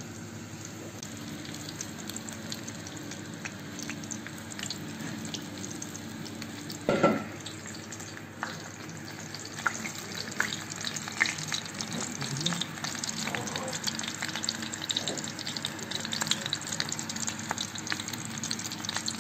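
Hot oil sizzling and crackling in a large aluminium kazan under a layer of meatballs, cabbage leaves and fried potato slices, with one loud knock about seven seconds in.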